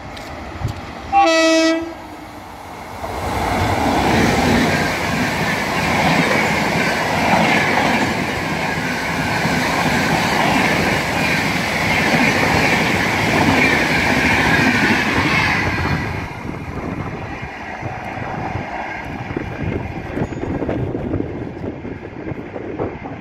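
Train horn gives one short blast about a second in. Then an express train with LHB coaches passes at high speed, its wheels and coaches rushing past loudly for about thirteen seconds before dropping to a fading rumble as it recedes.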